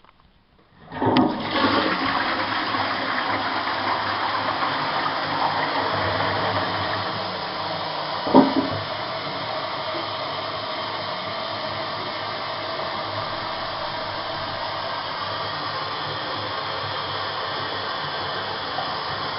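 Toilet flushing: a rush of water starts about a second in, with a short louder gurgle around eight seconds in, then the water keeps running steadily and a little quieter.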